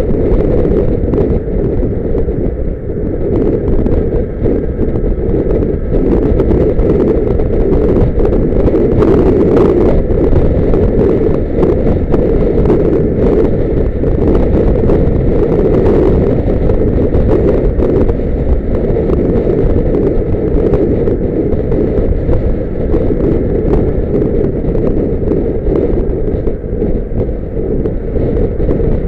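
Loud, steady wind buffeting the microphone over the low rumble of a moving vehicle.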